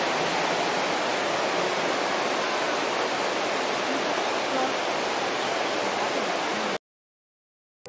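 Steady rushing of the fast-flowing Soča river, which cuts off abruptly about seven seconds in.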